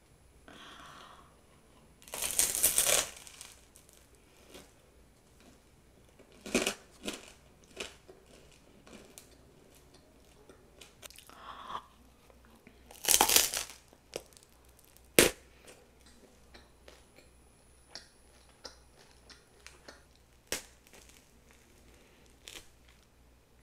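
Crusty ciabatta being bitten into and eaten, the crisp crust crunching and crackling. There are loud crunchy bites about 2 seconds in, again at about 6½ seconds and at about 13 seconds, and a sharp crack just after. Quieter chewing and tearing of the bread fill the gaps.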